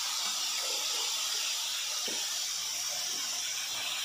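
Vegetables sizzling in hot oil in an aluminium kadhai, a steady hiss, with a few faint scrapes of the spatula in the pan.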